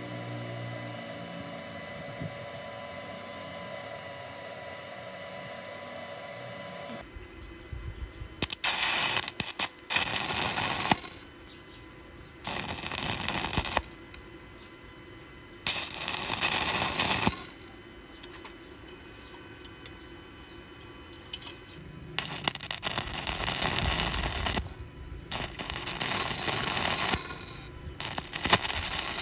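A steady hum with several tones for about the first seven seconds, then a stick-welding arc crackling in short runs of one to three seconds, about six times, as welds are laid on round steel pipe.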